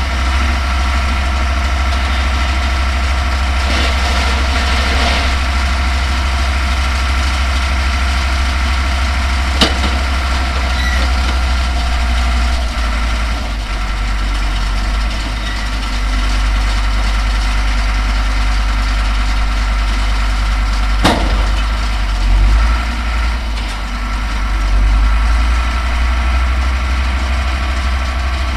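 Older Deutz tractor's diesel engine running steadily under load while pulling and driving a New Holland 644 round baler. Two sharp knocks come through, one about ten seconds in and another about twenty-one seconds in.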